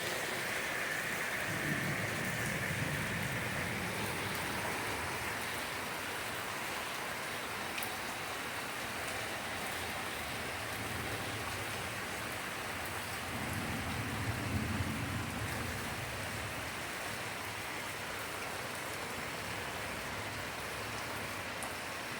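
Heavy, steady downpour of rain. Low rumbles of thunder roll in about two seconds in and again around fourteen seconds in.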